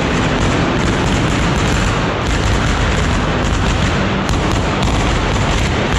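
Fireworks on the Florentine Easter cart (Scoppio del Carro) going off in a continuous, dense barrage of bangs and crackles.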